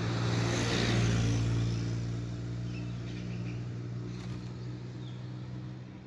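A car driving past on a paved road: its tyre and engine noise swells to its loudest about a second in, then fades away, over a steady low hum.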